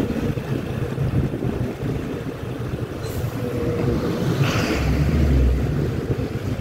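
Road noise on a wet street from a moving vehicle: a steady low engine hum with wind buffeting the microphone. About four and a half seconds in comes a louder rush of tyre hiss and engine as a bus passes close in the opposite lane.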